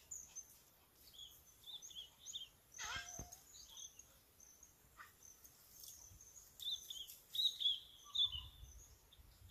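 Small birds chirping and twittering in short high calls, with one call sweeping steeply down in pitch about three seconds in and a louder run of chirps later on.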